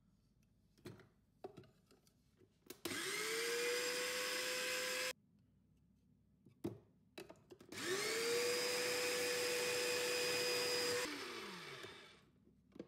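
Electric rotary vegetable grater running twice as it shreds courgettes and carrots. Each time the motor whines up to speed and then runs steadily for two to three seconds. The first run stops abruptly and the second winds down in pitch, with a few clicks and knocks from handling the machine before each run.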